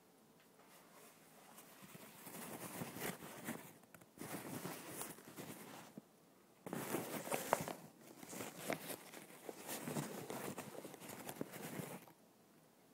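Close rustling and scraping handling noise in three stretches, with short quiet gaps near 4 s and 6 s and quiet again near the end.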